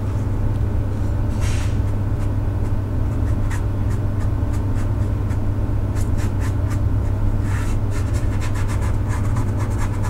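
A flat watercolor brush scrubbing and dabbing on paper in short scratchy strokes, coming thick and fast near the end, over a steady low hum.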